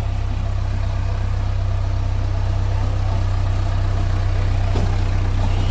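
JCB backhoe loader's diesel engine running steadily, an even low drone, with a single short click near the end.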